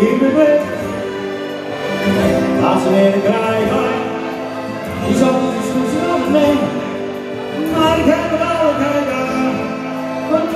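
Live music: a singer performing a song over instrumental backing.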